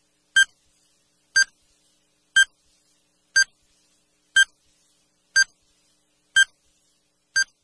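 Countdown-timer sound effect: short, high electronic beeps, one each second, eight in all.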